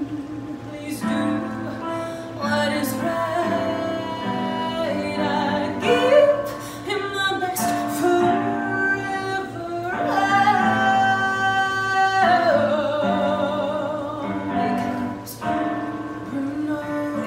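A woman singing a song solo, with a long held note that wavers with vibrato about two-thirds of the way through.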